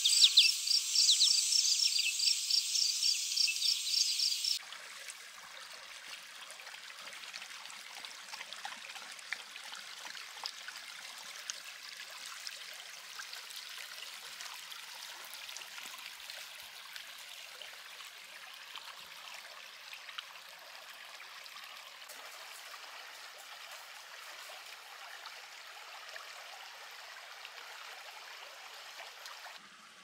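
Insects chirping in high, rapid pulses for the first four seconds or so, cutting off abruptly. Then a shallow woodland creek, Bang's Creek, trickling steadily over the shallows, a soft even rush of water with small splashes.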